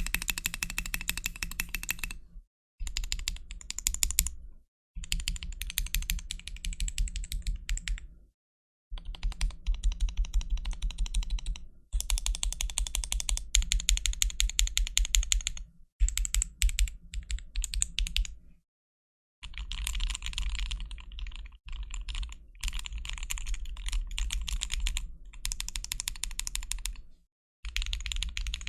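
Gamakay K87 mechanical keyboard being typed on fast in a sound test: long runs of rapid key clacks, broken by several short pauses.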